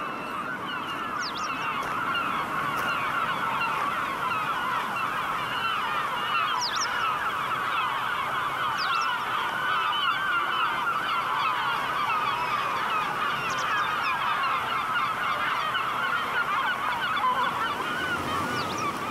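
A large flock of gulls calling together: a dense, steady din of many overlapping squawks, with a few higher, sharper cries standing out every few seconds.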